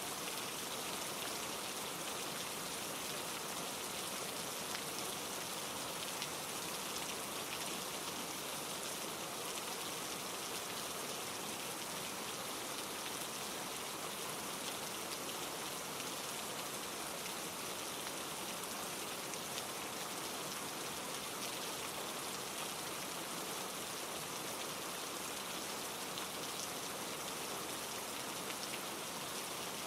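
Steady rain falling on trees, mixed with a mountain stream tumbling over rocks, an even unbroken wash of water sound.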